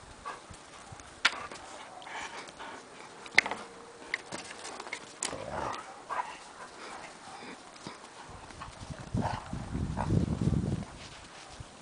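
Two Alaskan Malamutes playing: scattered dog noises with a few sharp knocks, and a louder low rumble about nine to eleven seconds in.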